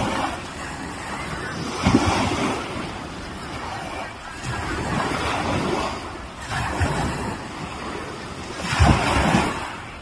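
Small waves on Puget Sound washing onto the beach, swelling and falling back in surges every two to three seconds, loudest about two seconds in and near the end.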